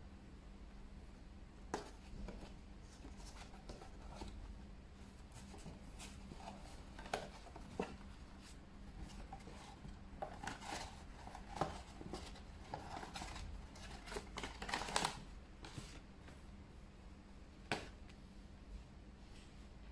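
Paperboard box being handled and unfolded flat on a table by gloved hands: scattered taps, rustles and scrapes of card, busiest in the middle.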